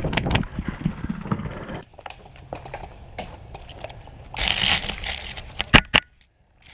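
Rapid footsteps on the ground, thinning out after about two seconds, then a brief rustling and two sharp loud clicks about a second before the end.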